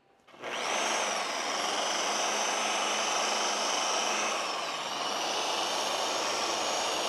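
Electric rotary polisher with a stiff foam pad spinning and buffing sanded clear coat with polishing compound. Its steady motor whine starts about half a second in and dips briefly in pitch near the middle.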